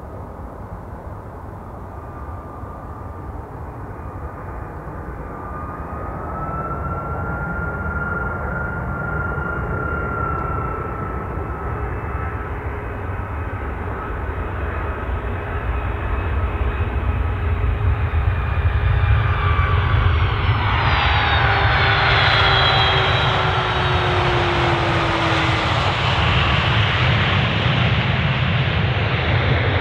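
Boeing 757-200 airliner on final approach, its jet engines' whine and rushing noise growing steadily louder as it nears. About two-thirds in the rush swells, and shortly before the end a tone falls in pitch as the jet passes close and touches down.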